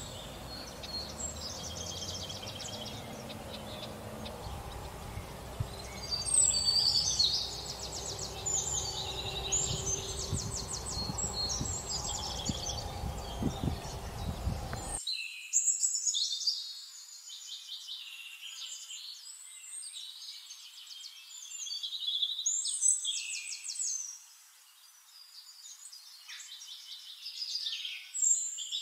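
Small birds chirping and trilling in quick repeated phrases. Low background noise with a few soft knocks sits under them until it cuts out abruptly about halfway through, leaving only the birdsong.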